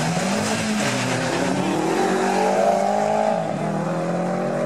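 Two cars, one of them an Audi S3 8L, launching hard from a standing start. Tyre noise comes at the launch, then the engines rev up through the gears, climbing in pitch and dropping back at each shift.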